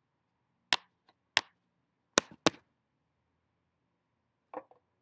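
Small plastic Shopkins toy pieces clicking sharply together: four loud clicks in the first two and a half seconds, the last two in quick succession, then a few softer clicks near the end.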